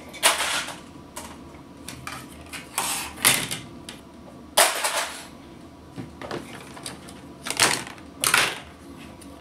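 Salvaged circuit boards being handled and set down in a plastic tub: about six sharp clattering knocks, spread unevenly over several seconds.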